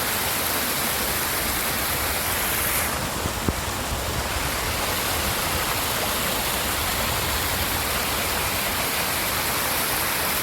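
Fast mountain creek rushing steadily, full with snowmelt that raises its flow every hour.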